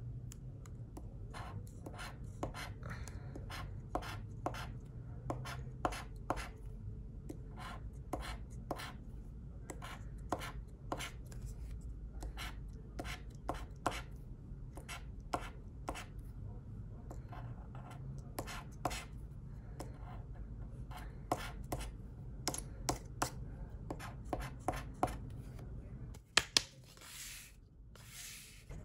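Metal scratcher tool scraping the coating off a paper scratch card in quick, repeated short strokes. Near the end come two sharp knocks and a brief rush of noise.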